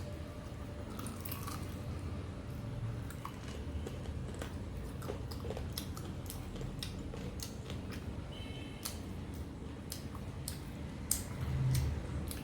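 Close-miked chewing and mouth clicks of someone eating mutton curry with rice, with many short irregular clicks and a louder stretch near the end.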